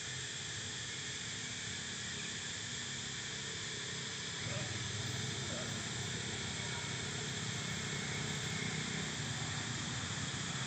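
Steady high-pitched hiss of an insect chorus in the forest, with a low rumble underneath that grows slightly louder about four and a half seconds in.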